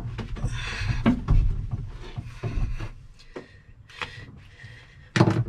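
Handling noises of hands and tools at work: irregular rubbing and scraping with scattered light knocks and clicks, and one louder knock near the end.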